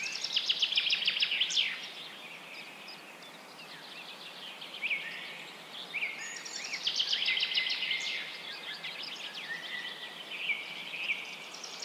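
Birds singing: rapid trills and short whistled chirps, strongest in the first couple of seconds and again from about six to nine seconds in, over a steady background hiss.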